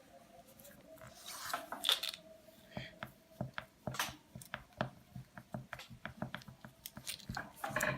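Crinkling of a small plastic package being opened by hand, with a run of small, irregular clicks and taps from handling the craft parts in between.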